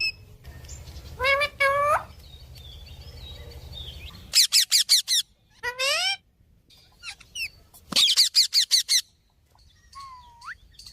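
Pet parrot chirping in short rising calls. It gives two calls early, then quick runs of about five and about seven calls, and a single rising whistle near the end.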